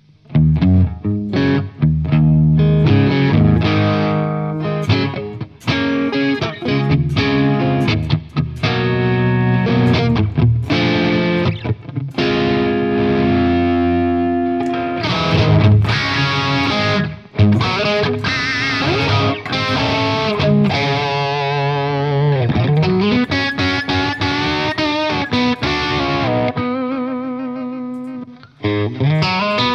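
Overdriven electric guitar, an AcePro Telecaster played through an Origin Revival Drive overdrive pedal: chords and riffs, with wavering bends and vibrato lead notes around the middle and a slide down and back up a little past the middle.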